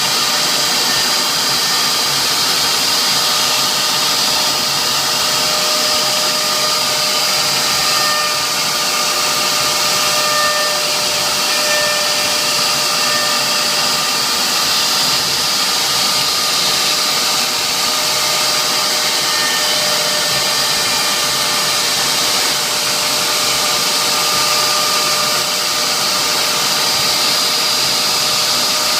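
CNC router spindle running steadily while engraving, a continuous high whine over a hiss that holds level throughout.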